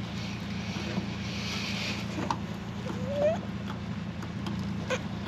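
A steady low mechanical hum with a few light clicks and knocks, and a short rising squeak about three seconds in.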